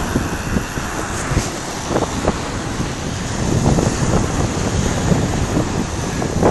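Wind buffeting the microphone, a steady rough rumble, with a few knocks from the camera being handled in the first couple of seconds.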